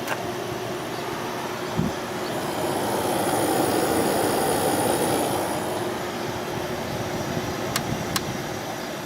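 Kenmore 12,300 BTU window air conditioner running on low cool, its fan and rotary compressor giving a steady, very quiet hum and rush of air. A louder rushing swell rises and fades in the middle, with a short thump about two seconds in and two sharp clicks near the end.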